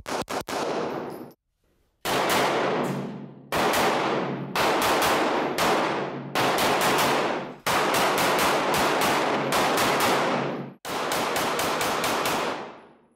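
Girsan MC9 9mm striker-fired pistol fired in rapid strings of shots. A fast string at the start, a brief pause about a second in, then several more quick bursts, each shot ringing out with heavy indoor-range echo.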